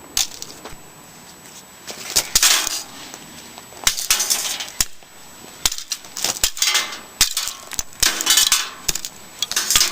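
Hard computer parts being handled during teardown of a tower PC: a string of irregular sharp clicks, clinks and knocks of metal and plastic, with a few short scraping sounds.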